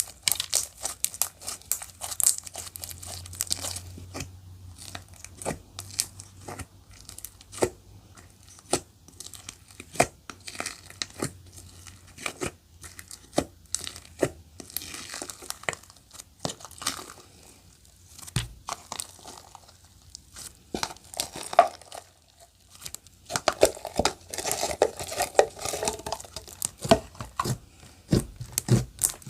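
Clear slime being squished and stretched by hand, giving dense, irregular sharp clicks and crackling pops.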